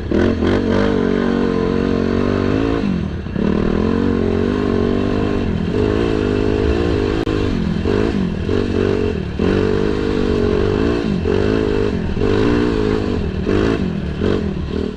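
Single-cylinder four-stroke engine of a Yamaha sport quad running through an RP race exhaust, revved up and let back down again and again. The sound cuts off abruptly at the end.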